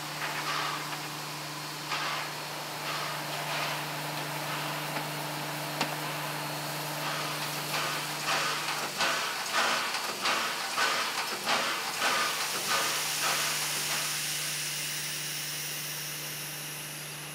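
R class 4-6-4 Hudson steam locomotive with a steady low hum and hiss. Partway through it gives a run of exhaust chuffs, about two to three a second, as it works the train. Near the end a strong hiss of steam swells up.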